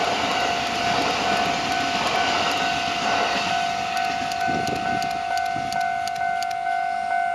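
A Japanese level-crossing warning bell ringing with a steady electronic tone over the noise of a passing train. The train noise thins out, with a few light clicks in the second half.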